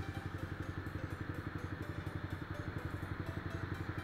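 Motorcycle engine running steadily at low speed, an even rapid pulsing throughout.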